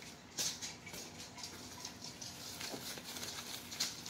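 Soft rustling and crinkling of small plastic bags being handled, with a couple of sharper crackles about half a second in and near the end.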